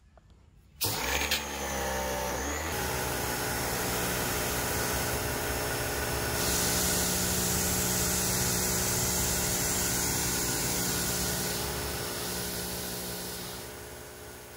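Innovex IPW002 1600 W electric pressure washer's motor and pump starting about a second in, rising in pitch as it spins up, then running steadily while it sprays, with a high hiss of spraying water louder through the middle; the sound dies away near the end.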